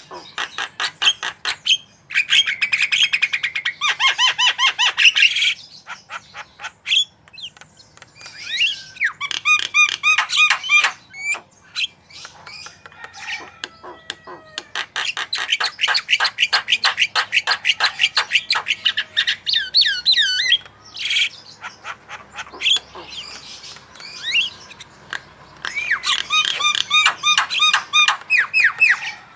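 Javan myna singing a busy, varied song: several long bursts of fast repeated chattering notes and whistles, with short pauses between them.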